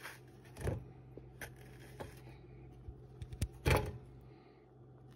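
Handling sounds from a pot pie in an air fryer basket as a knife cuts slits in its crust: a scatter of short clicks and knocks, the loudest about three-quarters of the way in.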